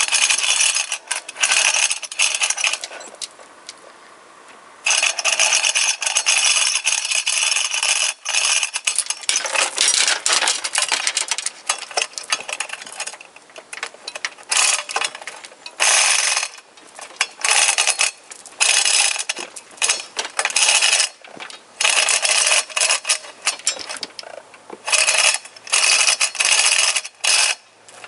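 Manual chain hoists lowering an engine: fast ratchet clicking and rattling chain as the hand chains are worked, in spells of a few seconds with short pauses between.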